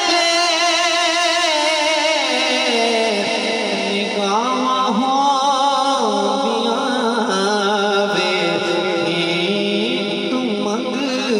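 A devotional kalam (naat) sung in long, held, wavering melismatic phrases by a reciter's voice over the gathering's sound system.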